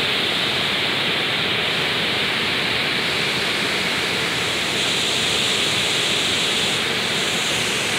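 Steady rushing of moving water, an even hiss that holds level throughout with no separate splashes.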